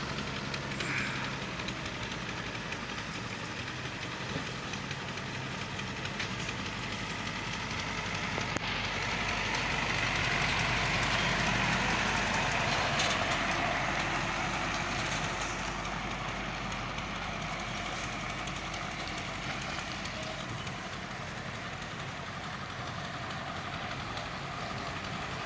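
Heavy Hino diesel trucks running on a rough gravel road, with a steady low engine sound. About ten seconds in, a truck passing close makes the engine and tyre noise swell, then fade again.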